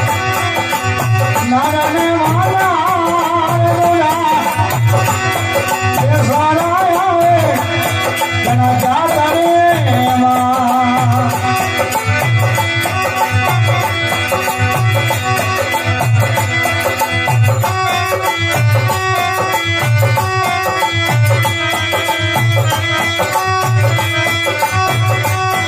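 Desi bhajan music: a drum keeps a steady beat about once a second under a wavering, bending melody line, which is strongest in the first ten seconds.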